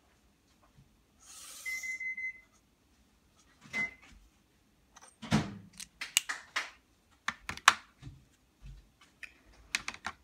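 Felt-tip marker drawn across paper in one long stroke, a dry scratching hiss lasting about a second. After it comes a run of irregular clicks and knocks.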